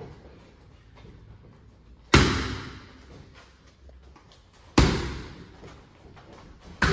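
Boxing gloves striking a coach's focus mitts with single hooks: two sharp smacks about two and a half seconds apart, each ringing out in the gym's echo, and a third just at the end.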